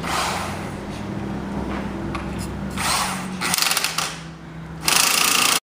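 Woodworking tool noise on boat timbers: a steady low machine hum with several short noisy bursts of tool work, the loudest near the end, which cuts off suddenly.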